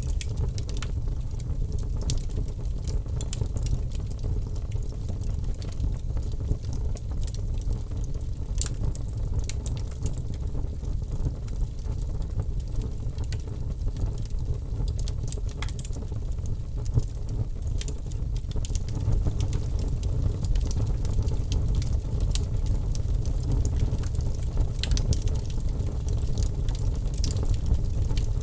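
Wood fire crackling: a steady low rumble of burning with frequent small pops and snaps, growing slightly louder about two-thirds of the way through.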